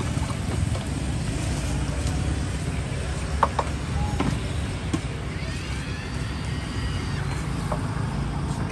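Street ambience: a steady low rumble of passing traffic with faint voices, and a few light clicks about three and a half seconds in.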